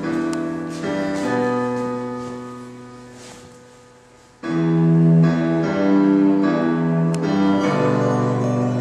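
Piano music: sustained chords that fade away, then louder chords come in sharply about four and a half seconds in.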